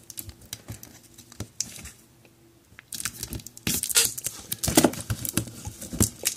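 Plastic shrink-wrap on a cardboard box being picked at with the fingers, light scattered ticks, then from about three seconds in torn and crinkled with loud crackling.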